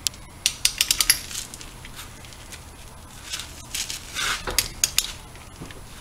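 Torque wrench and socket on a wheel lug nut, tightening it to its final torque: a quick run of sharp metal clicks about half a second in, then a softer metallic scraping and clinking about four seconds in.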